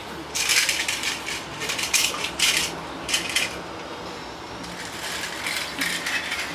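Plastic toy train track pieces and toy trains clattering as a toddler handles them: a series of short rattling clatters, busiest in the first few seconds and softer near the end.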